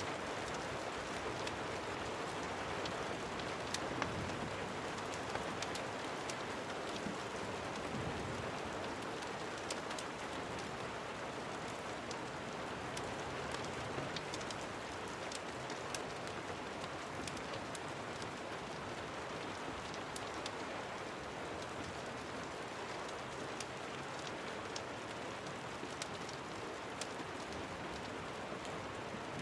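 Steady rain, an even hiss with scattered sharp ticks through it.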